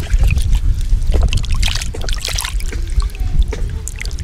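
Water splashing and dripping in a plastic basin as hands rub and wash chikanda (wild orchid) tubers, a quick run of small splashes and clicks over a steady low rumble.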